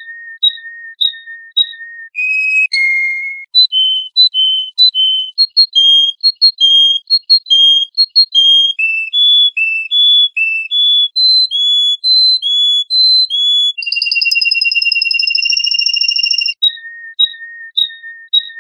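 Birdsong of clear, pure whistled notes. A string of short chirps on one pitch gives way to quick notes stepping up and down, then a long held whistle, and the phrase starts over with the chirps near the end.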